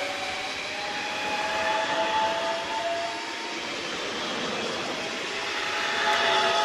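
Electric double-deck regional train running past close by, with wheel and rail noise and a motor whine that rises slowly in pitch during the first few seconds.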